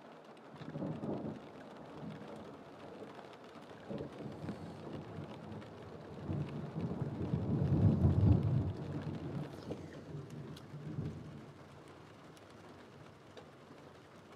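Rolling thunder: a deep rumble that swells in several waves, loudest about eight seconds in, then fades after about eleven seconds, with light rain ticking on glass.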